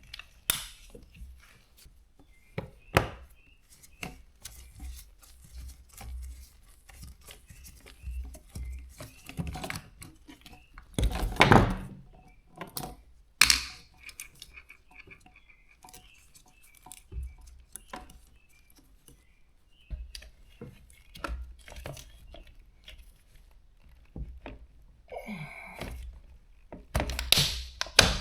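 Irregular thunks, clicks and short scrapes of hands and tools working on a dishwasher's pump and motor assembly and the plastic and metal parts around it. The heaviest knocks come about eleven and thirteen seconds in and again near the end.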